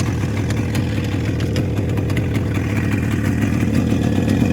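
1975 Yamaha RD350's two-stroke parallel-twin engine idling steadily, freshly tuned up with new spark plugs, fuel line and fuel filters.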